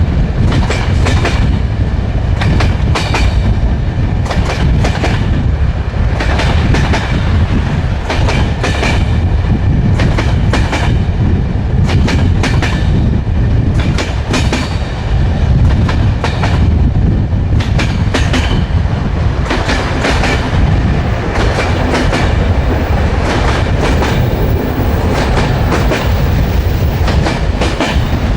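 Railway carriage wheels running over the rails: a steady heavy rumble with clickety-clack beats as the wheels pass the rail joints, repeating throughout.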